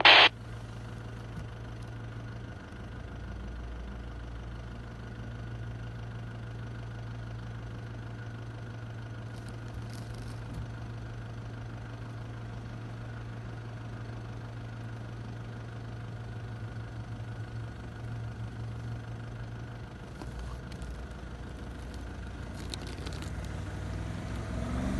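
Audi RS4's engine running steadily at a low hum out of sight, getting louder near the end as the car comes along the snow track. A brief loud knock at the very start.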